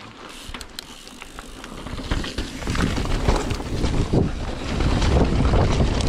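Mountain bike riding down a dirt singletrack, with wind buffeting the microphone, the tyres rumbling over the trail and the bike rattling. Light clicks at first, then much louder from about two seconds in as the bike picks up speed.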